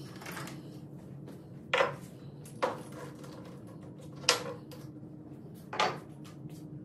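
Four sharp metallic clanks spaced a second or so apart, each ringing briefly, like metal parts or tools knocking together, over a steady low hum.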